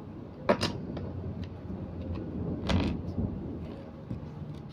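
Small plastic Lego pieces being handled and pressed together: a pair of sharp clicks about half a second in, a few light ticks, and a brief louder clatter just under three seconds in.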